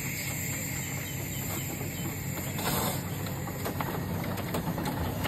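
A 7¼-inch gauge live-steam locomotive running toward the listener with a steady low rumble and hiss. From about halfway through, a quickening series of sharp clicks joins in and the sound grows louder as it comes closer.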